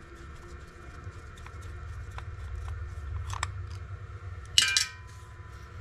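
Screwdriver backing small screws out of an ignition switch housing: scattered light clicks and scrapes, with one sharp metallic clink about four and a half seconds in.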